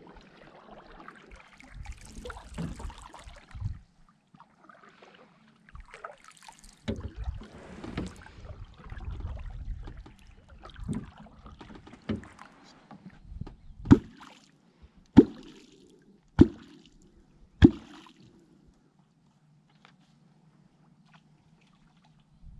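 Wooden catfish kwok driven into the river water, making gulping, splashing strokes: softer irregular ones at first, then four loud sharp pops about a second apart near the middle. The kwok's sound is used to call catfish up to the bait.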